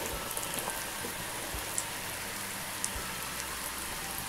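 Gram-flour-coated chickpeas deep-frying in hot oil in a kadhai: a steady sizzle with scattered crackles and pops, two of them louder near the middle.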